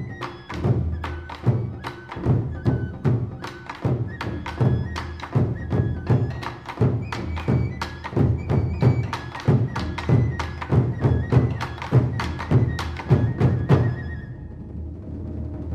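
Music with a fast, steady drum beat and a high melody line; the drumming stops about a second before the end, leaving a softer held tone.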